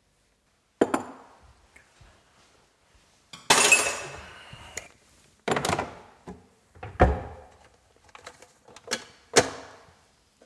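A run of knocks, thuds and clinks as kitchen things are handled and set down (a coffee tin and its lid, cupboard items, the coffee maker), with a longer rattling clatter about three and a half seconds in.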